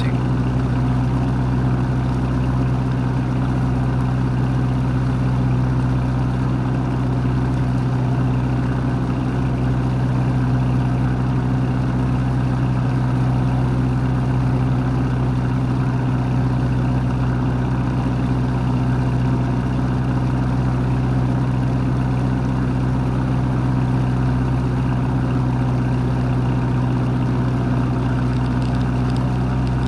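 Boat engine running at a steady speed, a constant low drone with no change in pitch or level, over a wash of water and wind noise.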